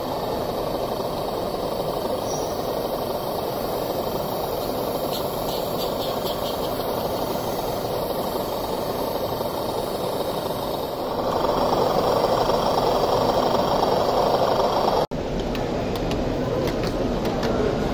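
Steady background hubbub of a busy exhibition hall, an indistinct mix of crowd noise with no clear voice standing out. It grows louder about two-thirds of the way through, breaks off for an instant soon after, and then goes on with some faint clicks.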